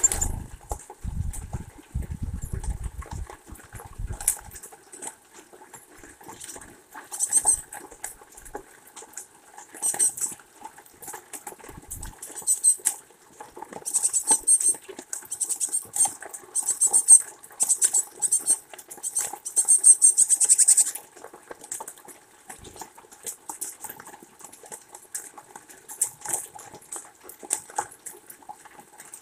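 Rain dripping and pattering around a sunflower-seed feeder while small birds peck and rustle in the seeds, giving irregular sharp ticks and clicks. There are a few low thuds in the first seconds, and a dense run of high ticks in the middle.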